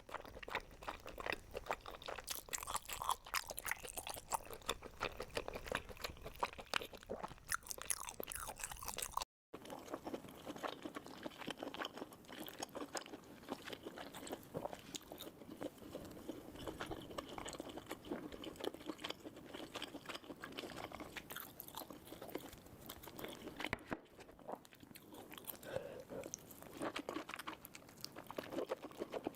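Close-miked crunchy chewing and biting of food, dense crackling crunches throughout, cut off by a short dead gap about nine seconds in before the crunching picks up again.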